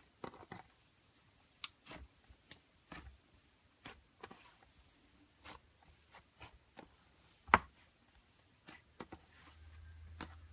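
Slime being squeezed and poked by hand: irregular sticky clicks and small pops, with one sharper pop about two-thirds of the way through.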